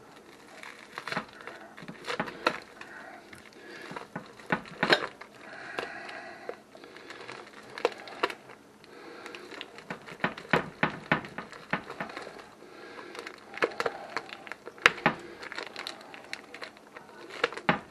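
Knife cutting and tearing through tough plastic vacuum packaging on a corned beef brisket: irregular crinkling and crackling with many sharp snaps.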